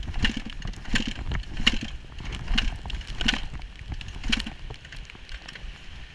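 Dirt bike picking its way along a forest trail, with the engine coming on in short bursts roughly every three-quarters of a second. The bursts stop about four and a half seconds in, leaving a quieter rumble.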